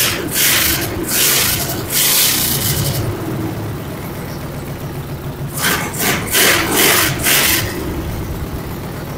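The engine of a modified racing lawn mower being cranked over in short rasping bursts: one run in the first three seconds, then another after a pause of a couple of seconds. This is a start attempt on an engine that has sat unused for years.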